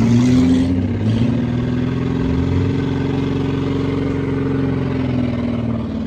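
Demolition derby car engines running hard and revving, their pitch rising and falling, with a couple of sharp knocks about a second in.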